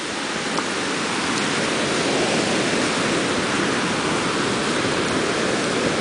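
Ocean surf washing over a rocky shore, a steady rushing noise.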